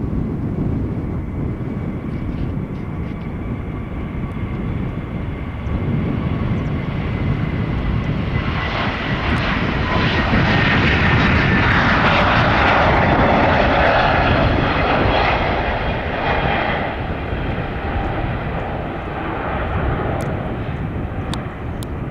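Airbus A321neo jet taking off on twin turbofan engines at takeoff thrust: a steady low rumble with a faint whine during the roll, swelling about eight seconds in to a loud rushing engine noise with high whining tones as the jet lifts off and passes. The noise eases off again as it climbs away.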